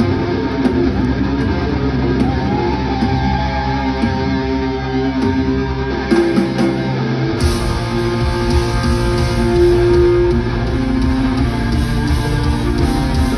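Live rock band playing a guitar-led passage. The bass and drums grow fuller about seven seconds in.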